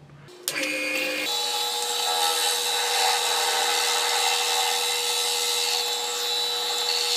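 A lathe starts up about half a second in, then a barrel trimmer cuts into the end of the spinning cast Alumilite resin pen blank, making a steady grinding over the lathe's motor tone as it squares the blank's face.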